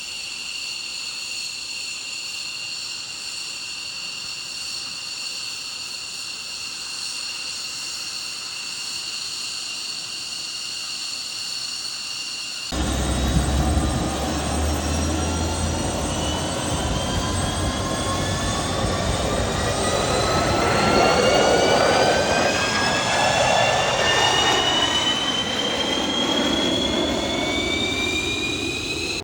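Fighter jet engine whining steadily at a high pitch. About thirteen seconds in it gives way abruptly to a louder jet roar with deep rumble, its whine gliding steadily upward as the engine spools up.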